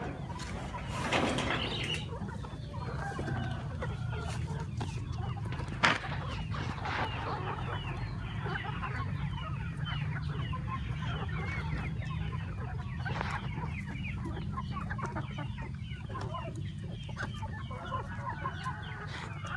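A flock of chickens clucking and chirping busily over a steady low hum, with one sharp knock about six seconds in.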